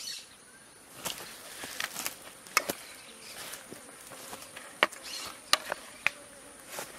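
Steady high-pitched insect drone, with about ten sharp clicks and knocks scattered through it.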